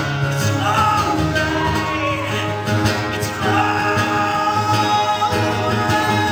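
A man singing long held notes over a strummed acoustic guitar in a live solo performance; his voice slides up into a note about a second in and again at about three and a half seconds.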